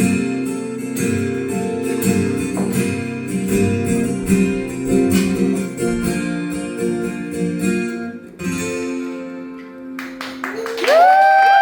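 Acoustic guitar strummed through the closing bars of a slow song, ending on a chord left to ring out. Near the end a voice calls out a loud, rising "whoo" and holds it for about a second and a half.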